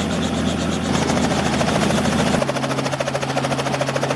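Aeronca 7DC Champion's four-cylinder engine and propeller running at low taxi power, a steady, evenly pulsing drone. The tone changes abruptly about two and a half seconds in, losing its deepest notes.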